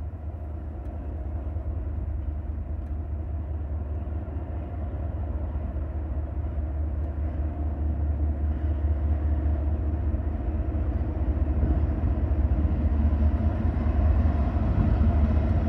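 Norfolk Southern mixed freight train's lead diesel locomotives approaching: a low engine rumble that grows steadily louder.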